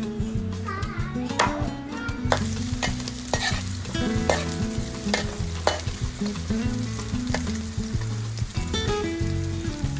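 Food sizzling as it fries in a pan, with a utensil stirring and knocking against the pan now and then. The sizzle thickens about two seconds in.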